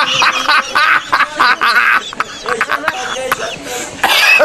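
Indistinct human voices with coughing, in short broken bursts.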